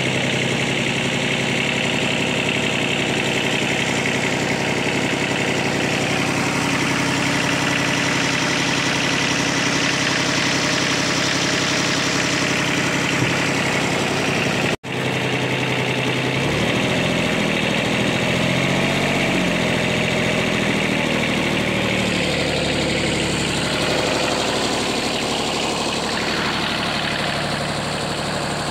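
VST mini tractor's diesel engine idling steadily. The sound cuts out for an instant about halfway through, and the engine note wavers for a few seconds after.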